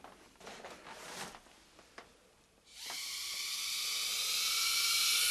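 Faint handling noises and a click, then nearly three seconds in a mini quadcopter's tiny electric motors start up and run with a steady high-pitched whine that swells slightly.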